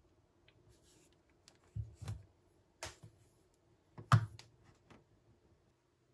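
Handling noise from a smartphone: a few sharp clicks and short knocks, the loudest about four seconds in.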